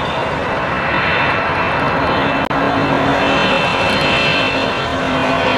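Boeing 777 airliner on final approach with gear down: steady rushing jet-engine noise with a faint high fan whine over it. The sound drops out for an instant about halfway through.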